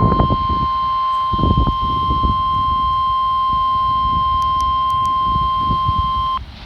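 NOAA Weather Radio warning alarm: a steady, loud single tone of about 1050 Hz sounding through a weather radio receiver, with a low rumble of background noise underneath. It cuts off suddenly near the end, marking the end of the alert signal before the test announcement.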